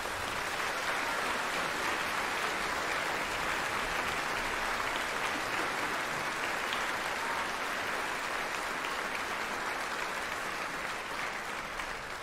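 Audience applauding: dense, steady clapping that begins to die down near the end.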